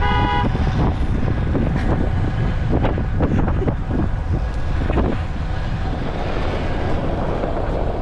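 A vehicle running steadily, with heavy wind noise on the microphone. A horn toot ends about half a second in, and a few knocks or rattles come around three to five seconds in.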